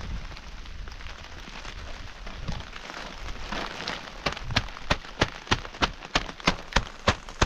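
Rain falling with an even hiss. From about four seconds in, a steady run of sharp taps joins it, about three a second.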